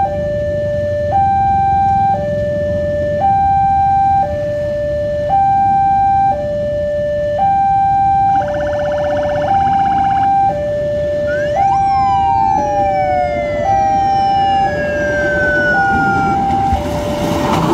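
Railway level-crossing warning alarm sounding: a two-tone electronic signal switching between a lower and a higher note about once a second. About halfway in, a whistling tone leaps up and then slides slowly down over a few seconds. Near the end a rumbling noise builds as the lori dresin rail inspection car reaches the crossing.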